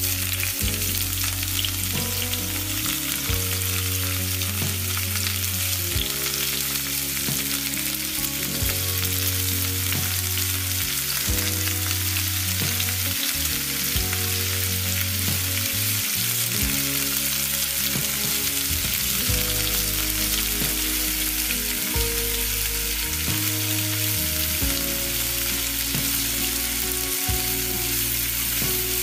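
Minced garlic and onion sizzling in melted butter in a frying pan, with sliced mushrooms frying in the pan by the end, stirred now and then with a spatula. The sizzle is a steady, even hiss.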